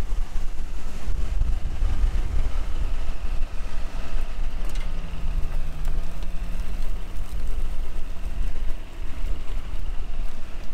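Rollback tow truck's engine running steadily as the loaded truck creeps across a grassy field, under a heavy low rumble of wind on the microphone.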